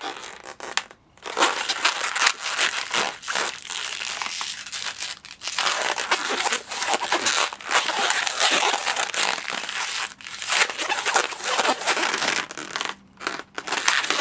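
Inflated 260 latex twisting balloon rubbing and squeaking under the fingers as it is squeezed and twisted into a small one-inch bubble, in long stretches broken by a few short pauses.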